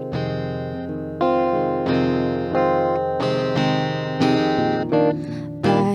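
Guitar chords strummed in an instrumental passage between sung lines, a new chord about every second, each left to ring.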